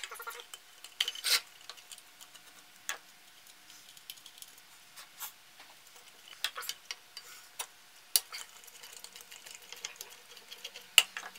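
Irregular light clicks, taps and clinks of small metal motor parts and a screwdriver being handled and set down on a workbench, with a few sharper knocks.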